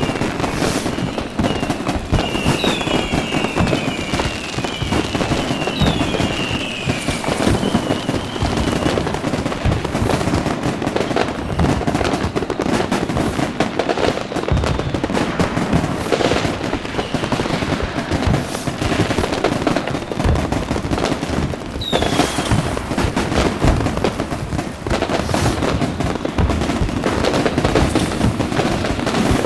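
A dense fireworks display: continuous bangs and crackling with no let-up. Several falling whistles, as from whistling rockets, sound over the bangs during the first several seconds, and one more comes about two-thirds of the way through.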